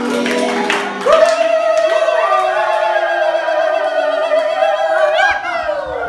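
A group of schoolchildren singing together, with a few hand claps in the first second. About a second in they hold one long note, which slides down in pitch near the end.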